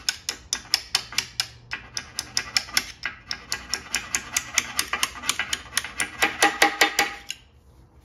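A snap-off utility knife sawing through a rope crankshaft seal to trim it flush with the engine block, making a rapid, even run of crisp clicks at about four or five a second that stops near the end.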